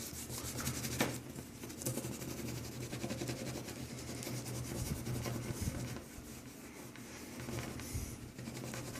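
Half a walnut rubbed over a scratch in a wooden surface: quiet, irregular scratchy rubbing.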